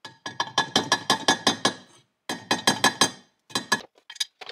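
Brass-headed hammer tapping a socket to drive the shift drum bearing into a 1998 Honda CR125R's aluminium crankcase half. It gives quick runs of light, ringing metal taps, several a second, broken by short pauses.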